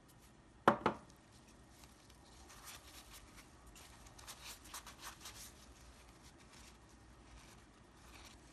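Two quick knocks as a bottle of Noodler's ink is set down on a table, followed by the soft crinkling rustle of a paper towel being handled and folded.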